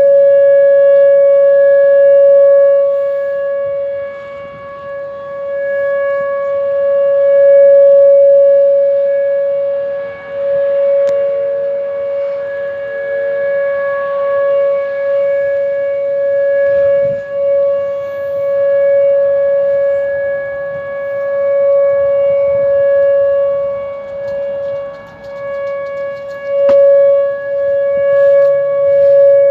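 Whelen WPS 2906 electronic tornado siren sounding a steady, unwavering tone during a monthly test. The rotating siren's sound swells and fades every five or six seconds.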